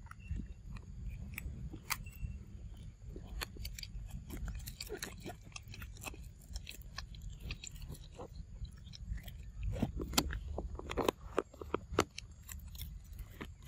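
Macaque biting and chewing on a small milk carton: a dense run of crackling clicks and crunches, thicker and louder from about ten seconds in, over a low steady rumble.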